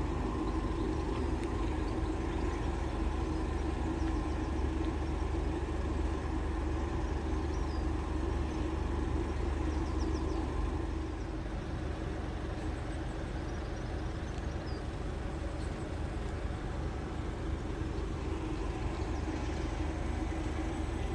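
Steady low hum of a Southeastern Electrostar electric multiple unit standing at the crossing, its on-board equipment running, easing slightly about halfway through.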